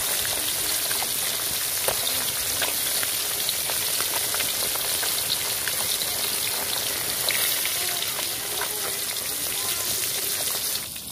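Whole climbing perch (koi fish) sizzling as they deep-fry in hot oil in a black iron wok, a steady hiss dotted with small pops and crackles. The sizzling drops away sharply near the end.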